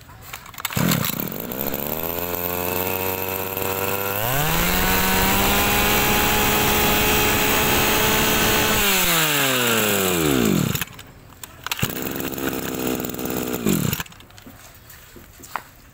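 Small two-stroke brush cutter engine catches about a second in and idles. Around four seconds in it revs up sharply to high speed and holds there for about four and a half seconds. It then winds back down, idles briefly and cuts off near the end.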